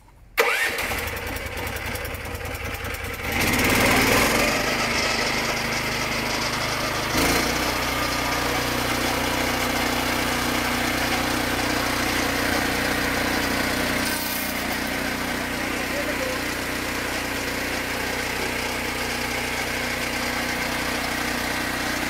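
Junior Peterson swingblade sawmill's engine starting up. It catches right at the start, revs up about three seconds in, then runs steadily.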